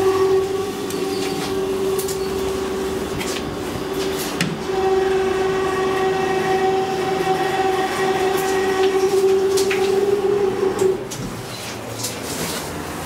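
Hydraulic elevator's pump unit running with a steady hum as the car travels up, with scattered clicks and knocks. The hum cuts off about eleven seconds in as the car comes to a stop.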